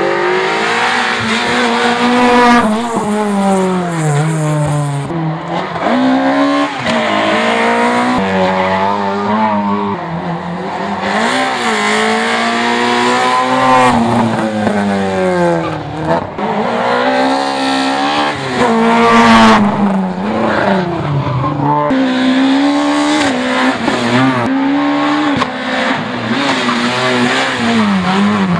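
Small rally hatchbacks racing one after another up a hillclimb, their engines revving hard and rising in pitch, then dropping sharply at each gear change or lift before climbing again.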